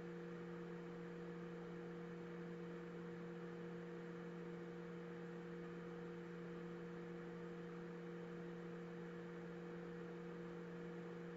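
Steady low electrical hum over a faint hiss, with no other sound: mains hum picked up by the recording.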